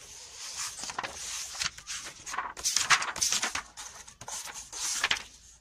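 Pages of a paperback textbook being flipped and handled, a run of irregular papery rustles, loudest in the middle and again near the end.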